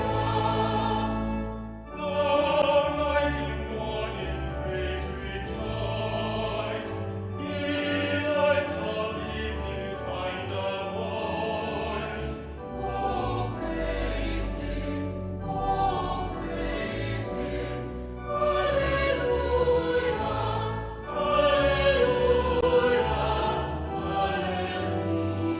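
A choir singing a classical-style sacred piece with sustained instrumental accompaniment.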